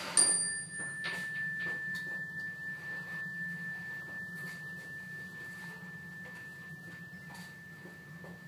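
A mindfulness chime struck once: a clear single ringing tone that slowly fades, its higher overtones dying away within the first second or so. This is the chime of a mindful-listening practice, where listeners keep their attention on it until it fades.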